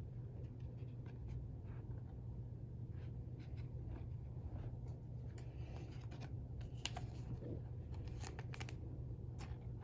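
Faint scratching and soft clicks of trading cards being slid and flipped through by hand, over a steady low hum.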